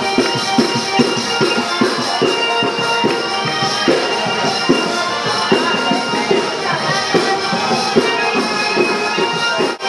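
A folk group playing live: a tambourine beats a steady rhythm under sustained melody and drone notes. The music briefly drops out just before the end.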